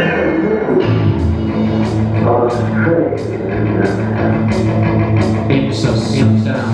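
Rock music with drum kit, bass and guitar; from about a second in, a steady beat of about two drum hits a second.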